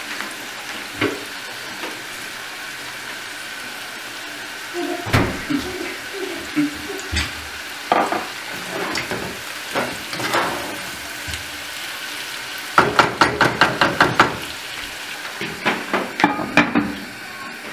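Chicken pieces and sliced onions sizzling steadily in butter and oil in a pot, stirred with a wooden spatula that knocks and scrapes against the pot now and then, with a quick run of strokes about two-thirds of the way in. Near the end a glass lid is set on the pot with a few clinks.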